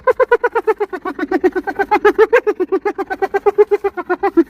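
Hyena giggling: a fast, unbroken run of short pitched yelps, about eight a second.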